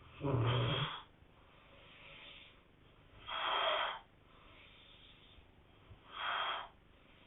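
People snoring: three loud snores about three seconds apart, the first one deeper, with fainter breathing between them.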